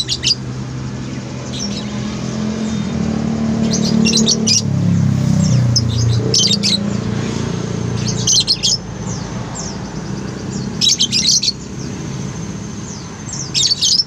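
Caged lovebirds giving shrill, high chirps in short clusters every couple of seconds, over a steady low hum.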